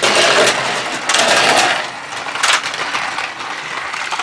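Battery-powered plastic toy trains running on plastic track: a continuous rattling clatter of gears and wheels, with a few sharp clicks.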